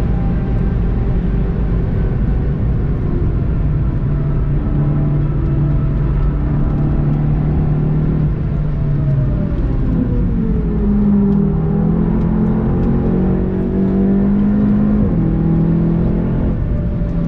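Golf GTI TCR's turbocharged four-cylinder engine heard onboard at track speed under wind and road noise, its note holding steady, dipping, then stepping up about ten seconds in as the car slows.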